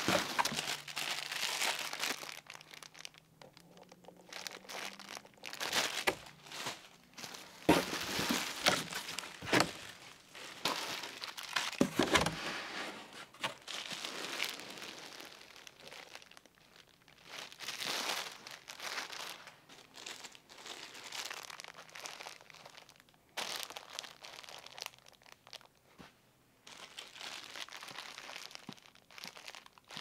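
Clear plastic packaging bags crinkling and rustling as they are handled, in bursts with short pauses. A few dull knocks come in the first half.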